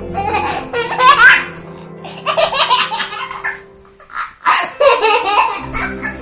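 A young child laughing in several bursts, with faint background music underneath.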